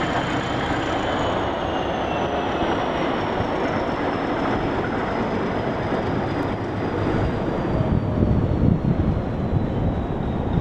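Diesel shunting locomotive running slowly past, towing a dead electric suburban train: steady engine rumble and the steel wheels rolling, with a faint high whine that slowly falls in pitch. Heavier wheel knocks come in over the last few seconds as the coaches roll by.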